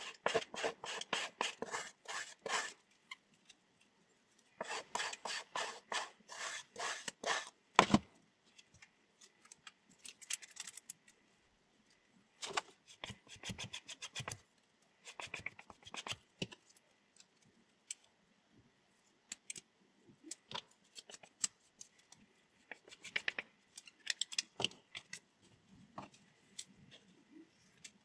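Scissors snipping: two runs of quick snips at about four or five a second, a single louder click about eight seconds in, then scattered shorter groups of snips.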